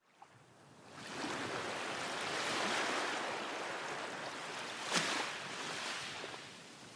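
Ocean waves breaking on a beach: a rushing wash of surf that builds over the first second, with a sharper splash about five seconds in, then eases off near the end.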